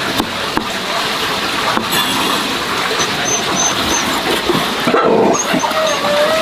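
A few dull knocks of a cleaver chopping on a wooden board, over a steady noisy background. About five seconds in, a dog starts a long, steady whine.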